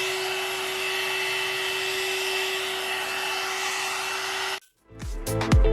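One-step hair dryer and styler (hot air brush) running on its low setting: a steady motor whine over a rush of air, noisy even on low. It cuts off suddenly near the end, and dance music with a strong beat starts.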